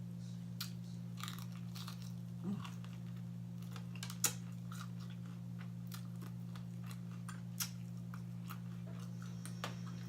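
A person chewing fried food close to the microphone: scattered wet mouth clicks and short crunches, the sharpest about four seconds in, over a steady low hum.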